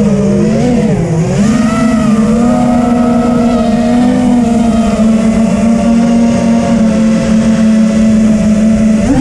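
Motors of a TBS Vendetta FPV racing quadcopter whining in flight, their pitch dipping and coming back up about a second in as the throttle changes, then holding steady.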